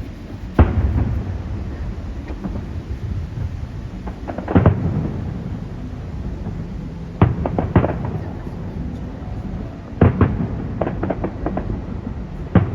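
Display fireworks bursting overhead: about eight sharp bangs at irregular intervals, each trailing off in a low rumbling echo. The loudest comes just after the start, and a quick run of bangs follows around the ten-second mark.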